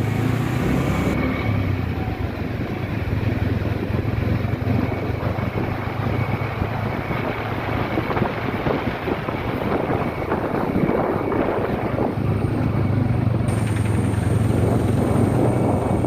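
Steady rush of water pouring over a waterfall, with wind rumbling on the microphone.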